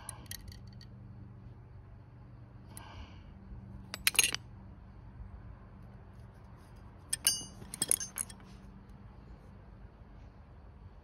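Metal clinking: a few sharp clinks about four seconds in, then a ringing metallic strike followed by more clinks around seven to eight seconds in, over a faint steady hum.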